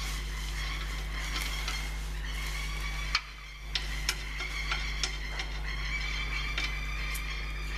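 A steady hum with a thin high whine, with scattered light clicks and taps of parts being handled. The hum drops out briefly a little after three seconds in.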